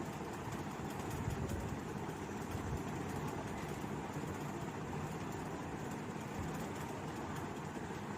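Steady low rumbling noise with a faint hiss and no distinct events.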